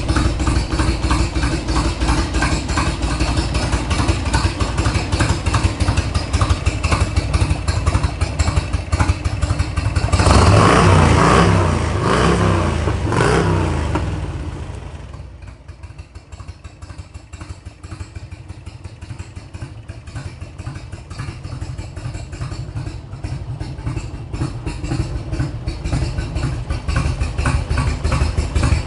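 Motorcycle V-twin engine of a 1991 Harley-Davidson Electra Glide Classic, the 1340 cc Evolution, running at idle. It is revved briefly about ten seconds in, then sounds fainter for a while before slowly growing louder again.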